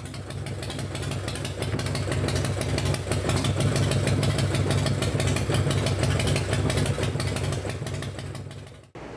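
Motorcycle engine running at a steady idle. It fades in at the start and cuts off abruptly near the end.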